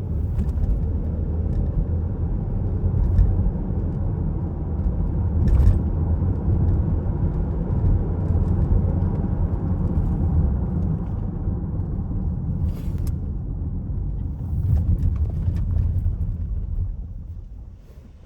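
A 2018 Chevy Equinox heard from inside the cabin on a test drive: steady engine and road rumble, with a few short clicks, while the engine misfires on cylinder 4 under load from a cracked spark plug. The rumble dies down about a second before the end.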